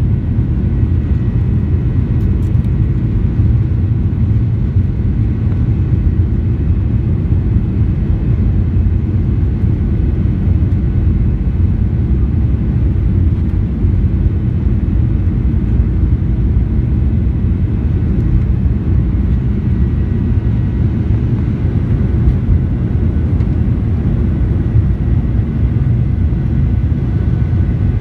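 Boeing 737-800 jet, heard from inside the passenger cabin: a steady, loud low rumble of its CFM56 turbofan engines and airflow, with a faint steady whine above it.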